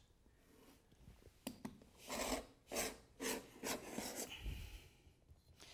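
Freshly sharpened steel paint scraper drawn across wooden floor strips in several short scraping strokes, shaving off the wood. The sharp edge is cutting the wood fibres and peeling up shavings rather than raising dust.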